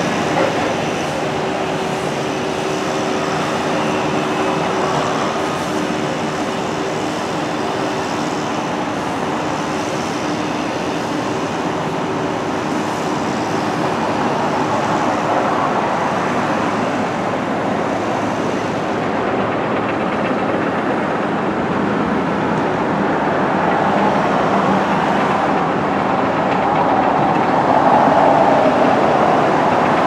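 Steady din of heavy machinery and traffic, with a low steady hum that stops about halfway through. The noise grows a little louder near the end.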